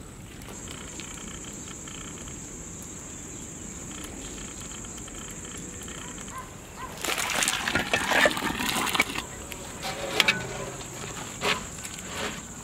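Steady high-pitched insect buzz. A little over halfway comes about two seconds of scraping and clicking handling noise, then a few single knocks.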